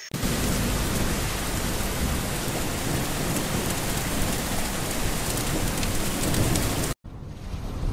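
Steady rain, an even wash of noise that cuts off abruptly about seven seconds in, leaving a quieter hiss.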